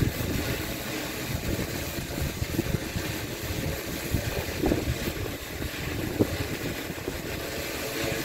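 Strong gusty wind buffeting the microphone with an uneven low rumble, over the steady hum of a large quadcopter's propellers as it holds position against the wind.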